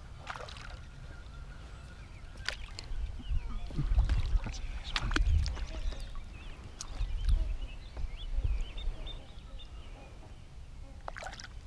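Kayak moving on the water: a few sharp knocks against the hull and heavy low rumbles in the middle, with faint birds calling.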